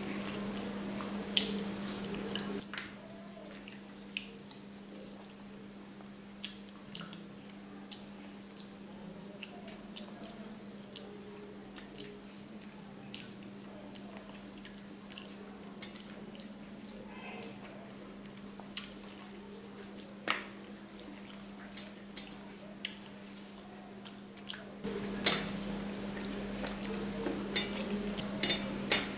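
Close-up eating sounds of a person eating rice and curry by hand: wet chewing, lip smacks and scattered clicks, busier in the first couple of seconds and near the end, over a steady low hum.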